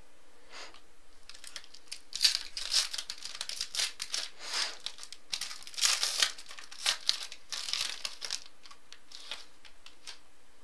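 A wrapper on a pack of football trading cards being torn open and crinkled in the hands: irregular crackling and rustling bursts that begin about two seconds in and die away near the end.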